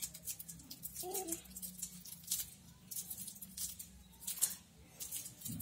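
Faint scattered rustles and clicks over a low steady hum, with one brief soft voice sound about a second in.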